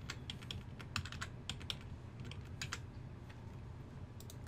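Computer keyboard keystrokes and mouse clicks: an irregular run of quick clicks over the first three seconds, then a pause and two more clicks near the end.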